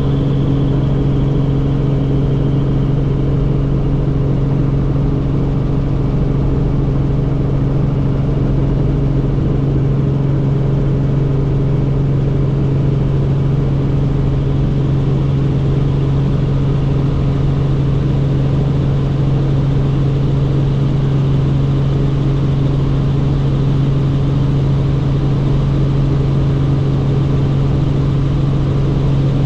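Helicopter in steady flight: a loud, unchanging drone of rotor and engine with a strong low hum.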